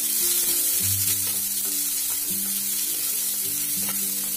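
Sliced onions sizzling steadily in hot oil in a non-stick pan while a wooden spatula stirs them, with light scraping strokes against the pan.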